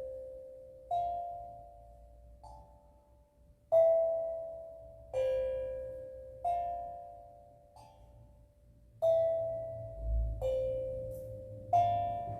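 A steel drum played slowly and freely: single notes struck about every second or so, each ringing on and fading away, about nine notes in all.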